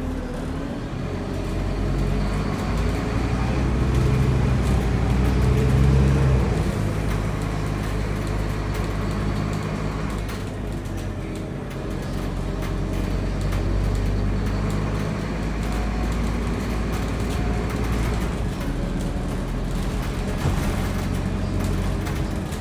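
Scania N230UD bus engine running, heard from inside the passenger saloon. Its note climbs for a few seconds, steps down about six seconds in, then runs on steadily with small rises and falls.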